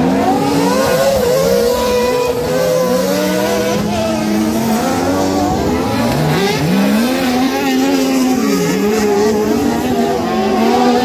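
Several off-road racing buggies' engines revving hard, their pitch repeatedly rising and falling and overlapping as the cars accelerate and lift off round the dirt track.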